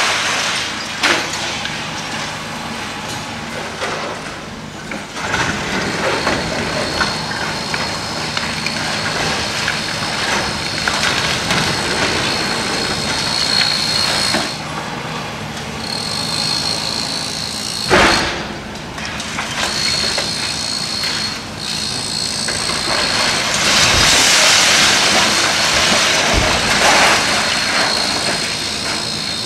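Demolition machinery at work: a heavy engine running under a high steady whine that comes and goes, with rubble crunching and scraping. There is a sharp knock about two-thirds of the way in and heavier thumps near the end.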